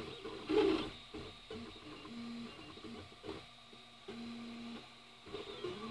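Flashforge Creator 3D printer running a print: its stepper motors whine in short pitched tones that keep changing pitch as the print head and bed move, with a louder stretch about half a second in.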